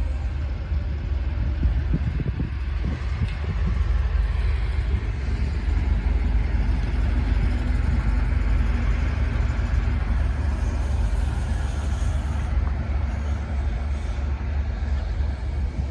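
Heavy vehicle running, a steady low rumble with engine and road noise, shortly after its horn has sounded.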